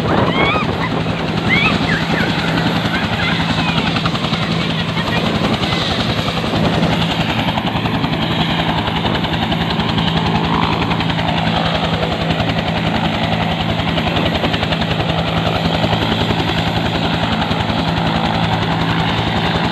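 Bell UH-1 Huey helicopter running on the ground with its rotors turning: a steady, rapid blade chop over a steady engine hum.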